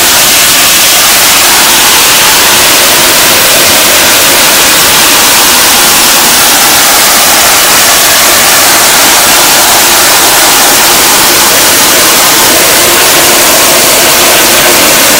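Garden hose spray nozzle blasting water at close range onto a screen-printing screen's mesh, washing out the unexposed emulsion to open the stencil. A loud, steady hiss of spray.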